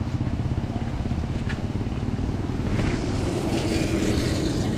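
Wind buffeting the microphone of a bicycle-riding camera, with the rolling noise of Panaracer GravelKing SK 38c tyres on dirt and gravel underneath. The gravel noise gets louder from about three seconds in.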